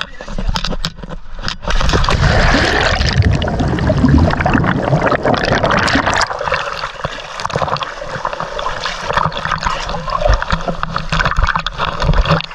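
Seawater splashing and gurgling close up as a person plunges into the sea and surfaces. It starts suddenly about two seconds in and settles to lighter sloshing after about six seconds.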